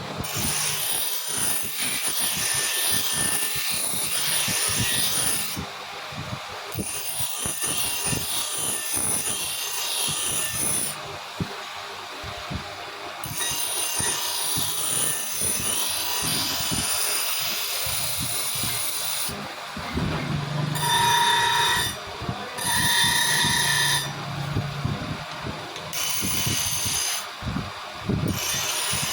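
Abrasive scraping and grinding on the steel of old scissors during restoration, in long stretches broken by short pauses. A small power tool whines briefly about two-thirds of the way through.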